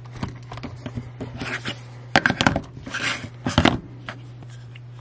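Power banks being set down and shuffled on a cutting mat: a few hard clacks and a scrape as the cases knock together, the loudest a little over two seconds in and again about three and a half seconds in, over a steady low hum.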